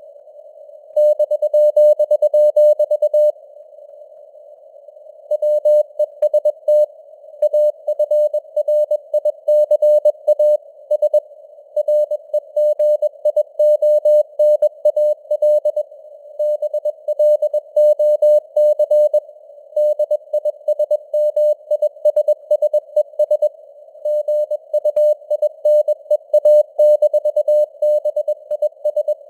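Morse code (CW) sent at 21 words per minute as a steady mid-pitched beep keyed on and off in dots and dashes. Beneath it is a narrow band of hiss, simulated radio receiver noise, that carries on through the gaps between characters and words.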